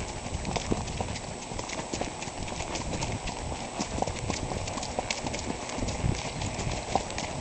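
Two horses walking on an asphalt path, their hooves clip-clopping in an irregular stream of sharp strikes.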